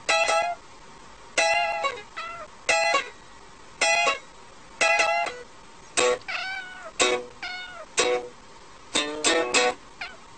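Cat meows mixed with light plucked-string music in a ukulele-like style. The music's short notes fall about once a second. The meows rise and fall in pitch and come more often in the second half.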